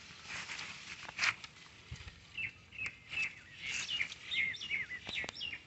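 Small birds chirping: a quick series of short calls that curve down in pitch, about three or four a second, starting around two seconds in. A few soft rustling noises come before them.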